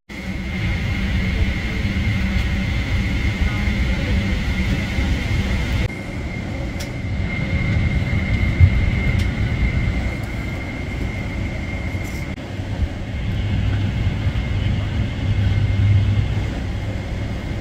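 Cabin noise of a parked Boeing 777-300ER airliner: a steady low rumble with a thin high whine above it. The whine fades about two-thirds of the way through.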